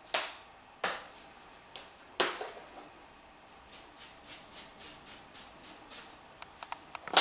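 Salt shaken from a spouted salt canister into a saucepan, in a quick run of dry shakes, about four or five a second, lasting a couple of seconds past the middle. Before it come three sharp clicks as the container is handled, and a louder knock right at the end.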